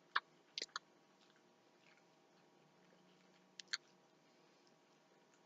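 Faint chewing of a white chocolate macadamia Luna protein bar, heard as a few short mouth clicks: a cluster in the first second and two more just before four seconds. The rest is near silence.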